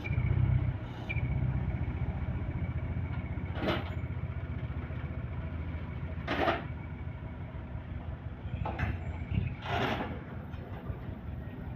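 A vehicle engine running steadily at a low pitch, with three brief hissing swells about three and a half seconds in, about six and a half seconds in, and near the end.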